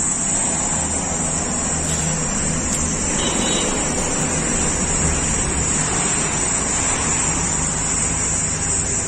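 Steady roadside traffic noise: an even rumble and hiss from vehicles on the highway, with a constant high hiss over it.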